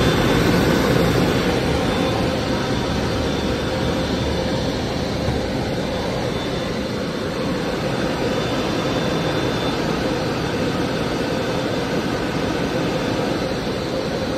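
Steady road and tyre noise of a car on the move, heard from inside the cabin.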